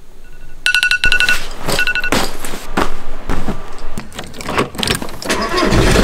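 A phone alarm beeping in rapid runs of high tones, stopping about two seconds in. Then come clicks, knocks and key jangling as an Audi's door is unlocked and opened.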